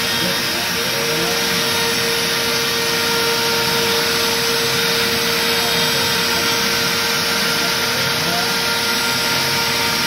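Shark HD510 CNC router cutting a beveled edge with a V-bit: the router motor runs with a steady high whine over the rushing hiss of the shop vacuum dust collection. Fainter tones glide up and down over and over as the head moves around the workpiece.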